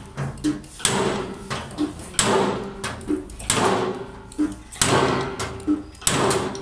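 Dent-puller machine working a bare steel car door panel: five sharp hits about every second and a half, with softer knocks between them.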